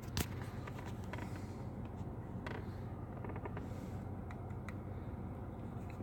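Scattered light clicks of a 2011 Toyota Tundra's dashboard switches being pressed, over a steady low hum of the truck's idling engine.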